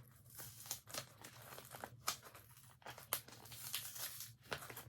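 Faint, irregular tearing and crinkling as a cardboard mailer box and its packing are picked and pulled at by hand to get it open.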